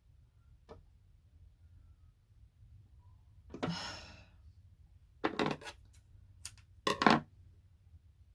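A woman's long, frustrated sigh about three and a half seconds in, followed by two short, sharp breathy huffs, with a few faint clicks in between.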